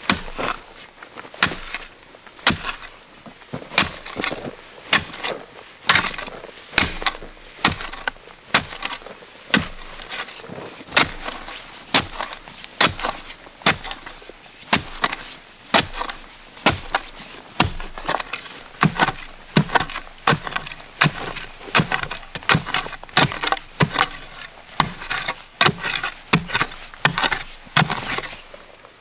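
A hand tool striking wood over and over, roughly one or two sharp blows a second at an uneven pace.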